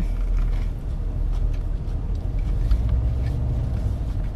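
Steady low rumble of a car idling, heard from inside the cabin, with faint soft clicks of someone chewing a sandwich.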